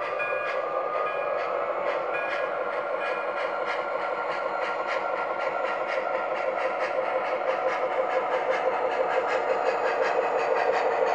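Model steam locomotive's sound system chuffing as the train pulls away, the beats quickening, with clicking of the wheels over the rail joints. A bell rings for the first couple of seconds.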